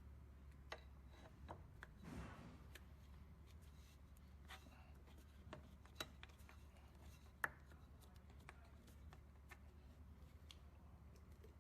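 Faint, irregular clicks and taps of small parts being handled, with a short soft scrape about two seconds in, over a low steady hum.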